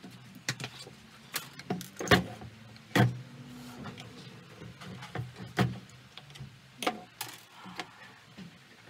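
Irregular sharp clicks and knocks of hand tools and parts being handled during work on a chainsaw, the loudest a little after two seconds in and at three seconds, over a faint low hum.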